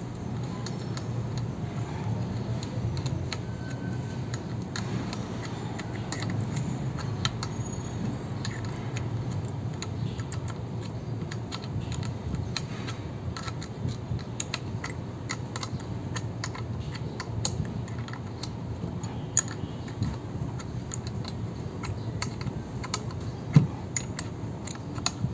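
Light, irregular metallic clicks and clinks of a wrench working the bolts of a brass pressure washer pump head as they are tightened, with one sharper knock near the end. A steady low hum runs underneath.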